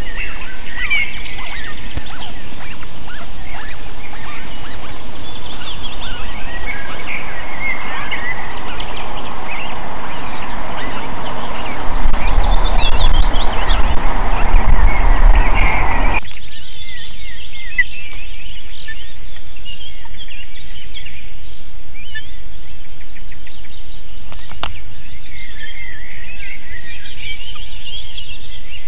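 Birds chirping in many short, high calls over a loud rushing wind noise on an outdoor nest-camera microphone. The wind noise stops abruptly about 16 seconds in, and the chirping goes on over a much quieter background.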